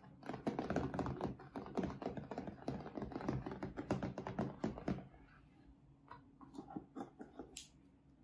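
Fingertips rapidly tapping and drumming on the aluminium lid of a closed M1 MacBook Air, a quick run of clicks like typing, thinning to a few scattered taps about five seconds in. Near the end there is a brief rustle of handling.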